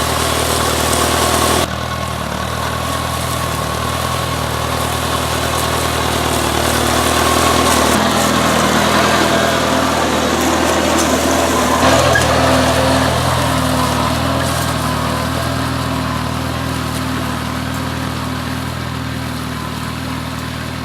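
Engine of a machine plowing up garden rows, running steadily under load, its tone shifting slightly a few times.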